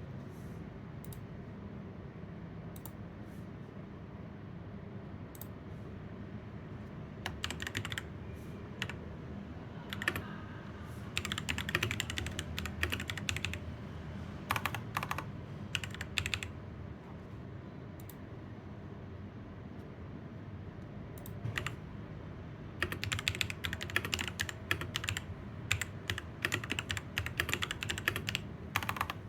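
Typing on a Ziyoulang K68 hotswap mechanical keyboard fitted with Akko V3 Pro Cream Blue tactile switches. Scattered single keystrokes at first, then bursts of typing, a pause, and steady fast typing through the last several seconds.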